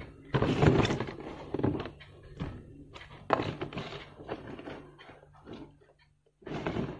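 Small cardboard product box handled on a tabletop: irregular thunks and rustling in a few bursts, the longest about half a second in.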